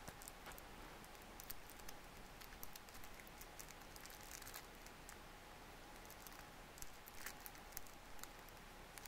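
Near quiet: a faint steady hiss of distant white-water river rapids, with small scattered clicks and crinkles close to the microphone throughout.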